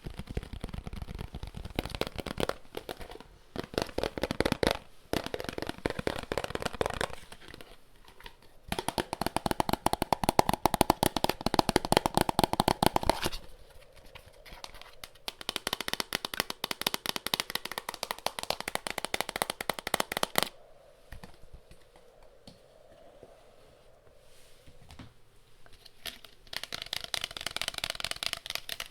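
Rapid ASMR tapping on objects, dense runs of quick clicks in bursts a few seconds long with short pauses between them.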